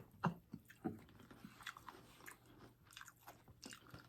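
Close-miked chewing and biting, a faint string of small, irregular crunches and mouth clicks, strongest in the first second.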